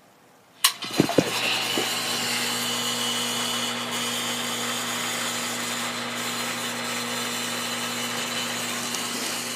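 Everbilt electric sump pump kicking on with a clunk just under a second in, then running steadily: a mains motor hum under the rush of water being pumped out.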